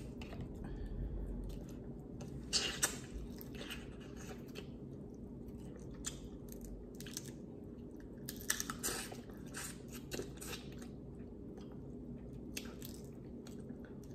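Close-miked eating of boiled seafood: shells cracked and pulled apart by hand and bitten open, with wet chewing and smacking, heard as scattered sharp clicks and crunches that come in clusters a few seconds apart.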